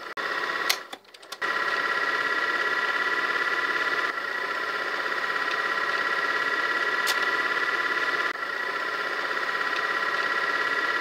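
Steady high-pitched buzzing drone of several stacked tones, pulsing rapidly. It drops out briefly about a second in.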